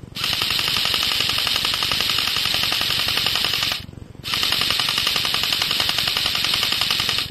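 Electric airsoft rifle, a CYMA AK74 AEG, firing on full auto in two long bursts with a brief pause about four seconds in: a rapid, even clatter of the gearbox cycling.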